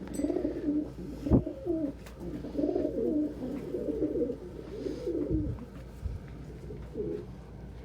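Domestic pigeons cooing, a run of low coos one after another that fades out after about five seconds, with one more near the end. About a second and a half in, a single sharp knock stands out.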